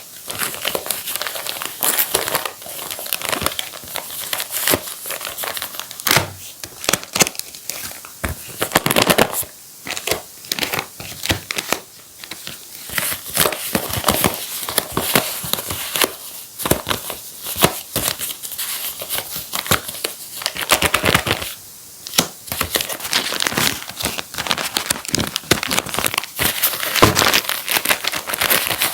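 Paper crinkling and rustling in irregular bursts, as handmade paper surprise packets are handled and unfolded close to the microphone.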